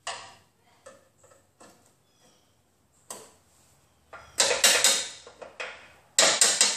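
Chisel struck against the sheet-steel flange of a car's radiator support, splitting a drilled-out spot weld from the frame rail: a few light knocks, then two loud bursts of rapid metallic strikes about two seconds apart.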